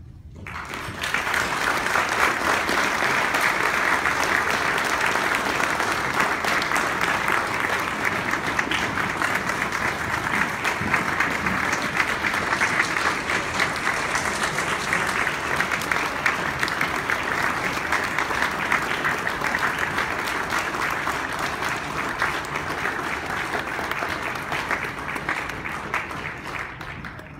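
Audience applauding: the clapping swells within the first second, carries on steadily for about 25 seconds and dies away near the end.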